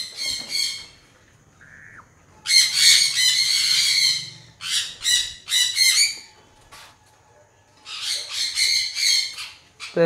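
Monk parakeet screeching harshly in bouts: one long squawk about two and a half seconds in, three short ones after it, and another run of squawks near the end. These are the distress calls of a bird being caught by hand.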